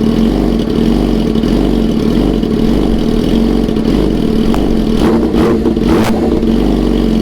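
Yamaha R6 inline-four sport bike engine idling steadily through an aftermarket exhaust, with a few brief clicks about five to six seconds in.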